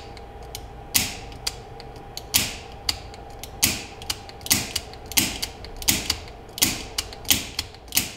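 Old Smith & Wesson revolver being dry-fired double-action on snap caps. There is a series of sharp mechanical clicks, about one trigger pull a second and a little quicker near the end. Each pull gives fainter ticks of the action turning the cylinder, then the louder snap of the hammer falling.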